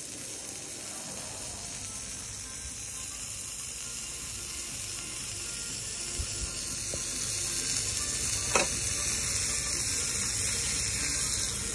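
Mozzarella-stuffed kofte burger patty sizzling in fat on a hot flat-top griddle: a steady hiss that slowly grows louder. A few brief ticks, the sharpest about two-thirds of the way through.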